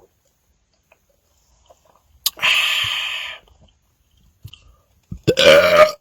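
A man belching after drinking peach-flavoured Pepsi: a click and a breathy, airy release about two and a half seconds in, then a short voiced belch near the end.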